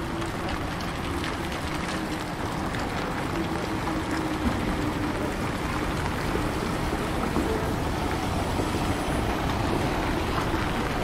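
Small battery-electric city bus driving across wet cobblestones and passing close, its tyres on the wet stones under a steady low hum from the bus. The sound grows gradually louder as it approaches.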